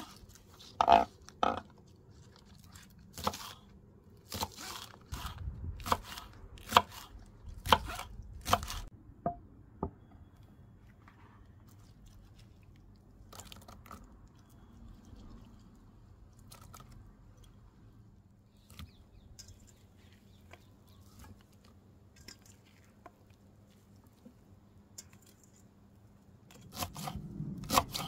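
Kitchen knife cutting through spring onions on a wooden cutting board: about a dozen sharp cuts over the first nine seconds. A long, much quieter stretch follows with only scattered light taps, then quick knife chops through parsley start again near the end.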